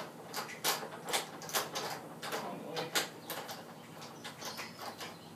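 Clamps being set and tightened on an aluminium saw-guide track: a string of short clicks and knocks at uneven spacing, busiest in the first three seconds, then thinning out.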